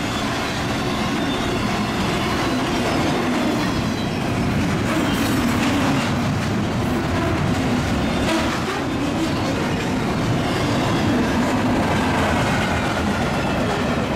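Union Pacific double-stack container train rolling past close by at speed: a steady, loud rumble of steel wheels on rail from the passing well cars.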